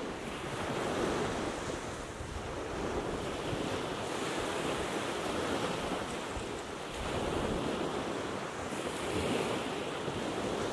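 Small Gulf of Mexico waves washing onto a sandy beach, swelling and easing every few seconds, with wind buffeting the microphone.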